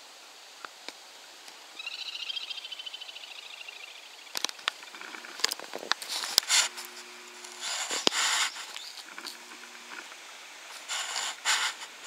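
A little grebe's fast pulsing trill, lasting about two seconds. After it comes a series of sharp clicks and rustling bursts, with two short low hums.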